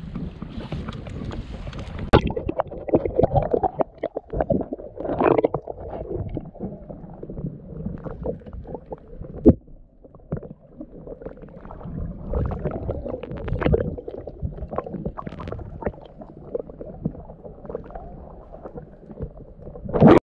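Wind rushing on the microphone for about two seconds, then muffled sound from a camera under water: water gurgling and knocking against it, with irregular thumps and a sharp knock about halfway through.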